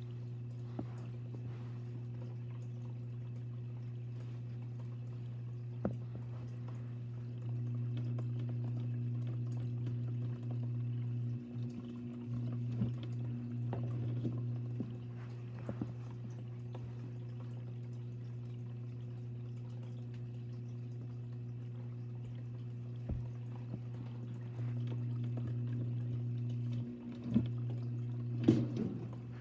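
A steady low hum that grows a little louder twice for several seconds, with scattered faint clicks and a few louder clicks near the end.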